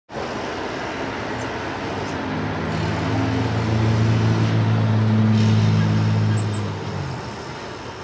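Road traffic noise with a low motor-vehicle engine hum that builds over a few seconds, is loudest about halfway through, and fades away near the end.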